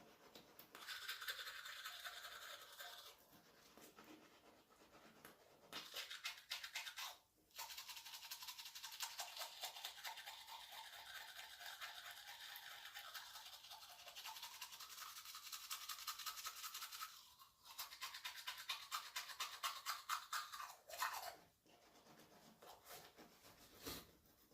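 Toothbrush scrubbing teeth in rapid back-and-forth strokes, in bouts broken by a few short pauses.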